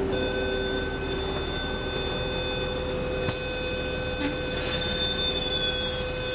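Copenhagen Metro train standing at a station with its doors open, giving a steady electric hum of several high tones. A hiss joins about three seconds in.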